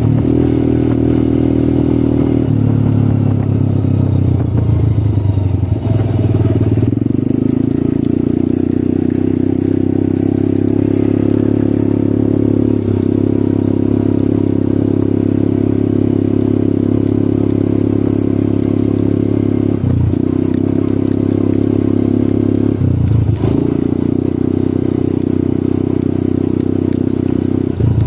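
ATV engine running, its pitch stepping up and down several times as the revs change, with brief dips and pick-ups like gear changes.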